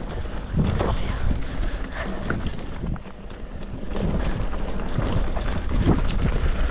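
Wind rushing over the microphone while a mountain bike rattles and knocks over rough trail at speed, with a brief dip in loudness about three seconds in.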